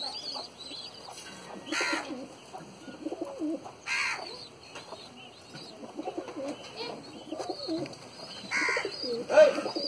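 A flock of domestic pigeons cooing, with low overlapping coos throughout. Short, sharper, higher calls cut in about two and four seconds in, and twice near the end, the last the loudest.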